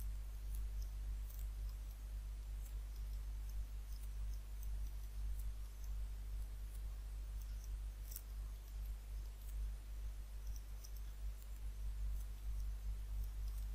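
Faint, scattered clicks of a computer mouse over a steady low electrical hum.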